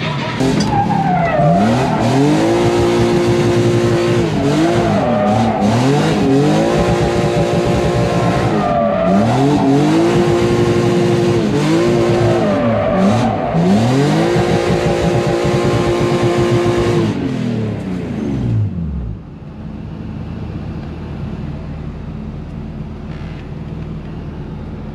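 Drift car engine on track, revving hard in repeated climbs that hold at high revs for a second or two before dipping and climbing again, over loud tire noise. About 19 seconds in the revs fall away, leaving a quieter steady low hum.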